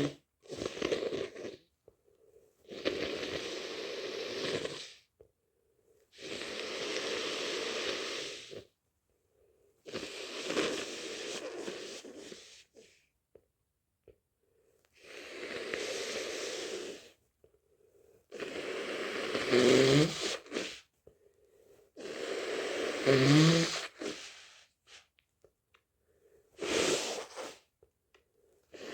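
Heavy, congested breathing and sniffing of a person with a stuffy head cold: about eight long, noisy breaths a few seconds apart. Two louder ones a little past the middle have a voiced catch in them.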